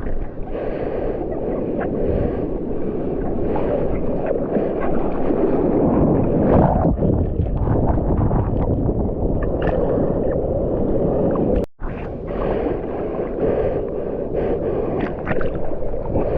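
Churning seawater and breaking surf washing around a GoPro action camera held in the waves, with irregular splashing. The sound cuts out for a moment about two thirds of the way through.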